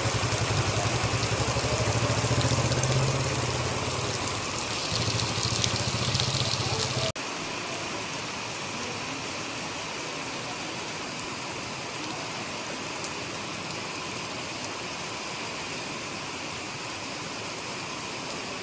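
Rain falling on a muddy puddle and wet ground as an even hiss, with a strong low rumble under it for the first seven seconds or so. After a sudden cut, a steadier, quieter rain hiss with no rumble.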